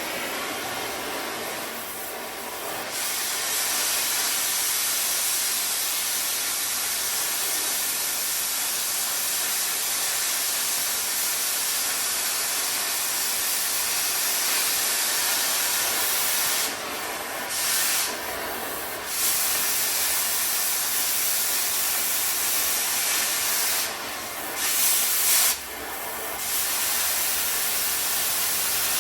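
Cutting torch hissing steadily as it cuts through a steel truck frame cross-member, with a few short breaks in the hiss in the later part as the cut pauses and restarts.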